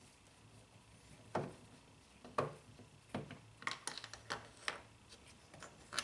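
Screwdriver working screws out of a car's plastic interior door panel: a series of sharp small clicks and taps, spaced about a second apart at first, then bunched together around four seconds in.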